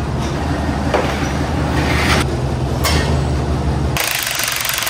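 Forklift engine running steadily under load, with a few sharp metal clanks from the chain and forks against the engine block. Near the end the engine sound drops away and a loud hiss takes over.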